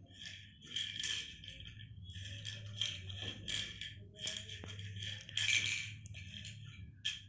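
Tablets rattling inside a small plastic pill bottle as a rabbit noses and pushes it around, in irregular clattering bursts.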